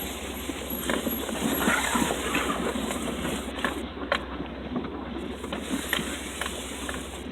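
Off-road vehicle crawling over a rocky trail: a steady low engine rumble under the rough noise of tyres on rock and gravel, with scattered sharp knocks.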